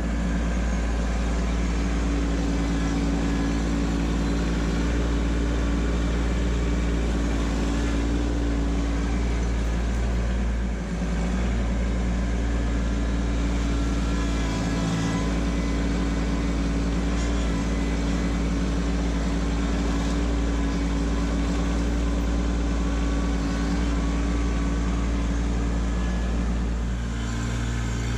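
Kubota LX2610 compact tractor's three-cylinder diesel engine running steadily while the front loader scoops and carries gravel, with a brief dip about eleven seconds in.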